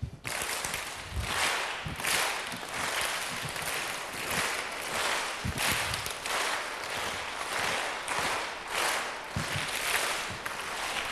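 A hall full of children clapping together, the sound swelling and fading in regular waves about every three-quarters of a second.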